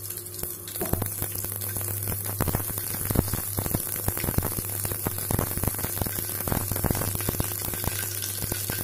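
Mustard seeds crackling and popping in hot oil, the tempering stage that shows the oil is hot enough; the rapid irregular pops start about a second in. A steady low hum runs underneath.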